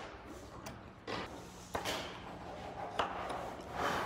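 Hand chisel paring the shoulder of an oak tenon: several short, sharp cuts, with a scraping stroke of the blade against the wood near the end.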